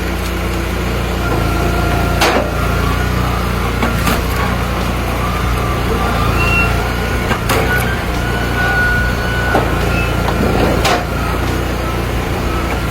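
Engine of a wood-splitting machine running steadily, with four sharp cracks or knocks a few seconds apart as it works.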